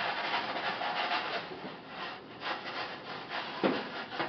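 Scraping and rubbing as sticky pizza dough is worked off a pan, in several uneven strokes, with a sharp knock about three and a half seconds in.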